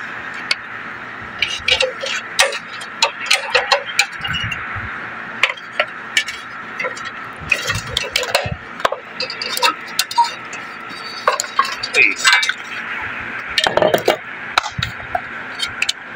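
Hand tools clinking and tapping on the sheet-metal chassis and motor bracket of a split air-conditioner's outdoor unit as its condenser fan motor is unbolted with a screwdriver and spanner: many short irregular metal clicks over a steady background hum.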